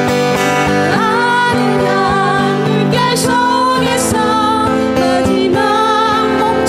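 Acoustic guitar accompaniment with a wavering, sustained melody line over it, in a slow ballad performed live.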